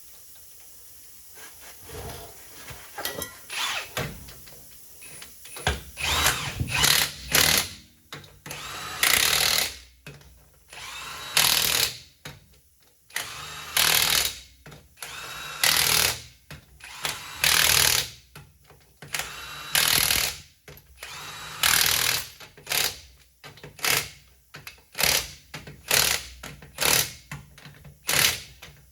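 A power tool driving the bolts and lug nuts on Humvee wheels, run in repeated short bursts about every second or two.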